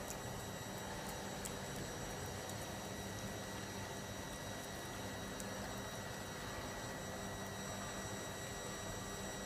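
Steady electrical hum and hiss with a few faint high tones, unchanging throughout, and a few faint brief ticks.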